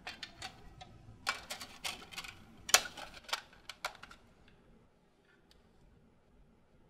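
Typing on a laptop keyboard: irregular key clicks and taps for about four seconds, then stopping.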